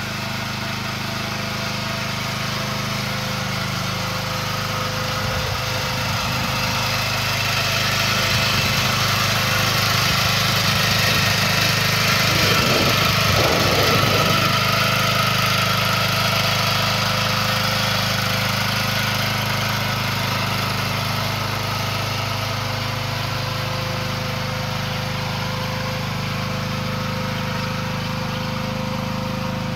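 Small engine of an AGT Industrial H13R mini excavator idling steadily, a little louder around the middle.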